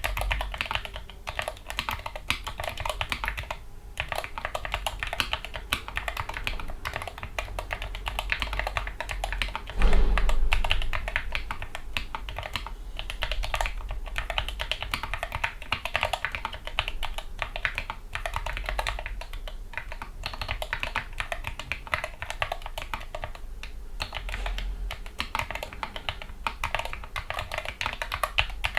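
Continuous fast typing on a Gamakay MK61 keyboard with lubricated, linear Gateron Yellow optical switches and foam dampening, a dense run of keystroke clicks. About ten seconds in there is a single louder low thump.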